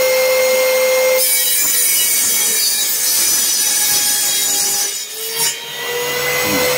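Homemade table saw ripping a board: the motor's steady whine gives way to the loud noise of the blade cutting wood about a second in. About four seconds later the cut ends and the whine comes back, rising as the blade spins free.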